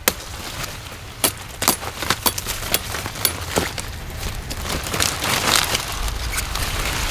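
Broccoli plants being harvested by hand: large leaves rustling and crackling, with irregular sharp snaps as the stalks are cut with a knife.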